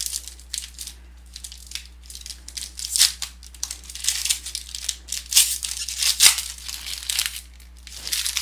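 Trading cards being handled and slid past one another by hand, a busy run of quick rustling, scraping strokes as a pack is flipped through.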